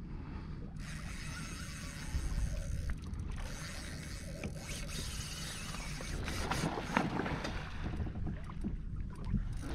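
Water slapping and splashing against the hull of a fishing kayak, with wind buffeting the microphone as a low rumble.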